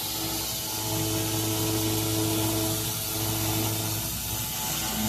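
Steady machine hum with a fine, even hiss from a running fiber laser cleaning machine; the lowest hum fades about four seconds in.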